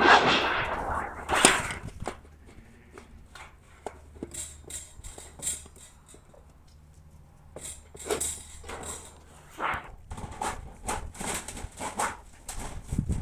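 Irregular knocks, clicks and clatter from work at a sheet-metal bending machine, loudest in the first two seconds.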